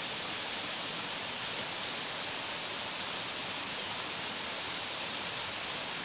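Steady hiss of water flowing over rocks in a shallow stream, even and unbroken.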